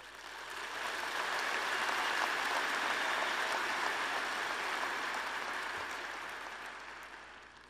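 Large audience applauding, swelling over the first second or so, holding steady, then dying away over the last couple of seconds.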